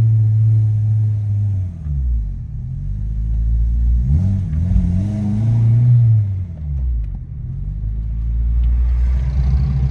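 Turbocharged Honda Civic D17 four-cylinder engine heard from inside the car. Its note holds steady, drops about two seconds in, rises again around four seconds and falls back, then settles into a steady idle that sits too high, around 1700 rpm.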